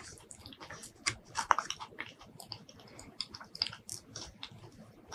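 Close-miked eating sounds of mini durian: soft, sticky flesh pulled apart by hand and chewed, giving irregular wet clicks and smacks, the loudest about a second and a half in.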